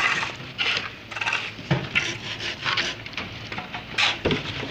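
Steel pans of wet concrete scraping and clattering as concrete is tipped and worked over steel reinforcement, in a run of uneven scrapes with a sharp knock about four seconds in.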